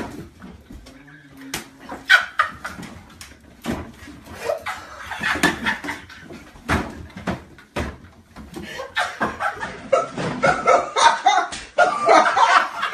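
People laughing in bursts, broken by sharp knocks. The laughter grows loud and continuous in the last few seconds.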